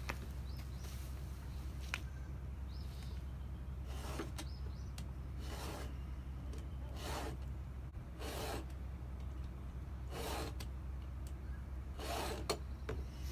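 Hand file strokes rasping across a Stihl 271 chainsaw's chain: about seven slow, even passes, one every second and a half or so, as the chain's cutters are sharpened.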